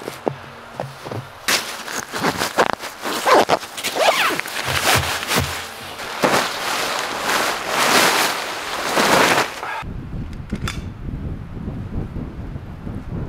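Irregular crunching and scraping strokes in deep snow, some short and some drawn out. About ten seconds in they stop abruptly and give way to a steady low rumble of wind on the microphone.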